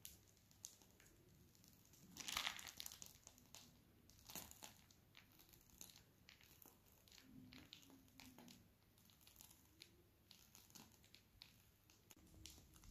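Near silence with faint crinkling of a plastic piping bag being squeezed to pipe cream, and a louder brief crinkle about two seconds in.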